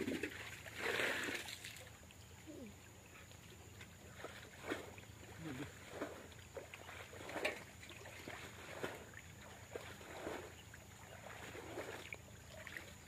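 Short, irregular splashes and sloshing in the shallow muddy water of a drained irrigation channel, louder during the first two seconds and then coming about once a second.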